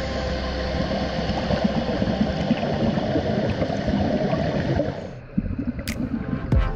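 Underwater bubbling and gurgling, a dense steady rush that falls away about five seconds in, followed by a couple of sharp clicks near the end.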